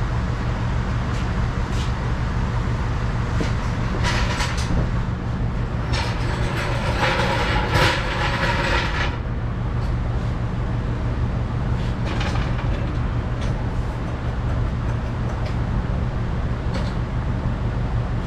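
Floor jack being rolled under the car and pumped up by foot, with metal clattering and rattling about four seconds in and again, louder, from about six to nine seconds, over a steady low hum.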